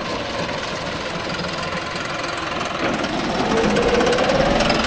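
John Deere 5075E tractor's diesel engine running, then revving up about three seconds in, its pitch rising and the sound growing louder.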